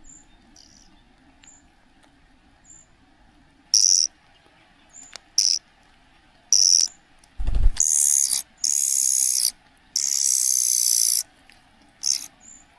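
Young cuckoo begging with loud, harsh, hissing calls, about seven of them and the longest over a second, repeated in quick succession from about four seconds in. There is a single low thump in the middle of the calling.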